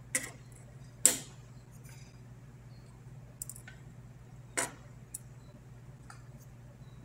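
Flush cutters snipping the excess leads off freshly soldered transistors: sharp, separate snips, three loud ones (two close together at the start, one after about four and a half seconds) and a few fainter clicks, over a steady low hum.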